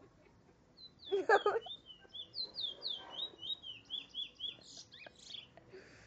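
Caged Trinidad bullfinch singing: a fast run of short, high, down-slurred whistled notes, about four or five a second, lasting some five seconds. A short, louder, rougher note comes about a second in.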